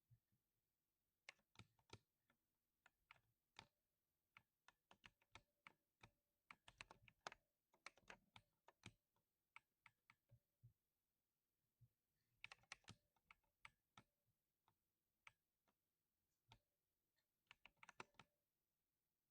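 Quiet typing on a budget mechanical keyboard tuned for a 'tock' keystroke. Separate key presses come at an uneven pace, with faster flurries of typing a few times.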